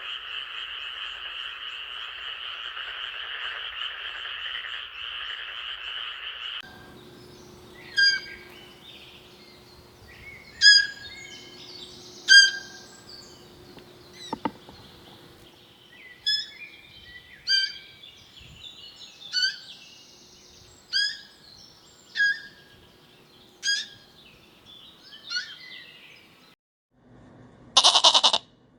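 A dense chorus of frogs croaking, which cuts off about six seconds in. A series of short, sharp, bird-like calls follows, about one every second and a half, and a brief loud animal call comes near the end.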